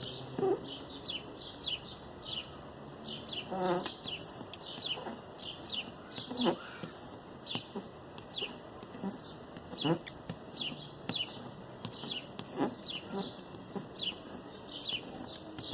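Small birds chirping repeatedly, short falling chirps coming a couple of times a second, with a few lower calls now and then.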